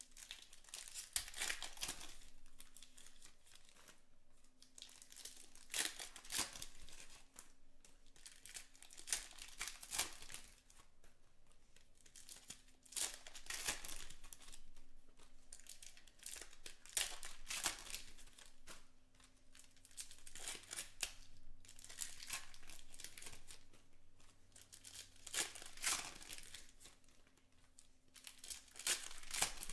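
Foil wrappers of Panini Select baseball card packs being torn open and crinkled by hand, in bursts every few seconds, with sharp clicks and rustles of cards being handled between them.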